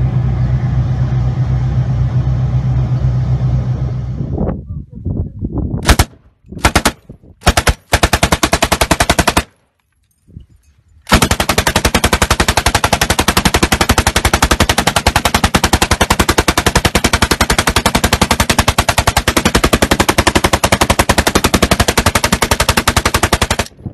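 A steady low vehicle rumble for about the first four seconds. Then automatic gunfire: a rifle and a mounted machine gun fire several short bursts, then one long unbroken burst of rapid shots lasting about twelve seconds.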